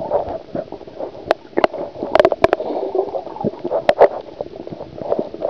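Muffled gurgling and sloshing of water picked up by a camera held underwater, with scattered sharp clicks.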